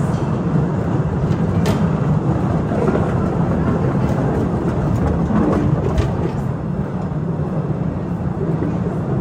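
Narrow-gauge cave train running: a steady low rumble of wheels on rail, with a couple of sharp clicks.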